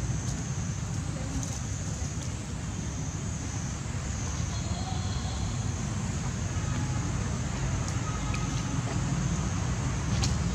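Steady outdoor background noise: a low rumble with a thin, steady high hiss over it, a few faint short squeaks, and a faint click near the end.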